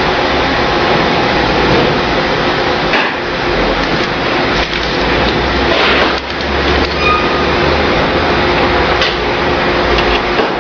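An XH A3+ electric business card cutter running steadily as it feeds and slits a printed sheet into cards, with a few sharp clicks.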